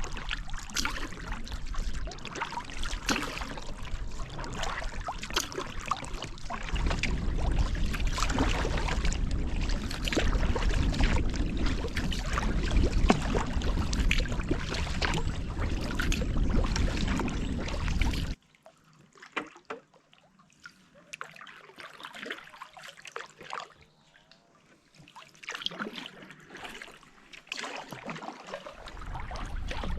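Kayak paddle strokes in water: splashing and dripping from the blades, with a low rumble joining about seven seconds in. About 18 seconds in the sound drops suddenly to quieter, sparser drips and splashes, then grows louder again near the end.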